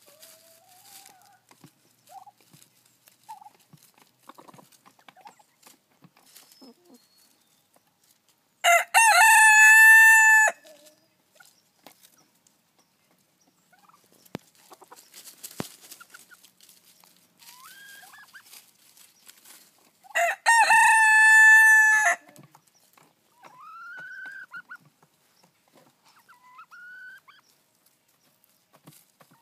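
Buff Silkie rooster crowing twice, about eleven seconds apart, each crow about two seconds long and much the loudest sound. Between and after the crows come softer short rising calls from the chickens and faint scratchy clicks.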